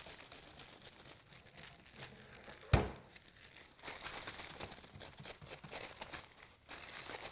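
Balled-up wax paper rubbed up and down a Triton plunge router's steel plunge tubes, crinkling and scratching, laying a film of wax on them so the plunge slides smoothly. One sharp knock about three seconds in, and the rubbing gets busier a second later.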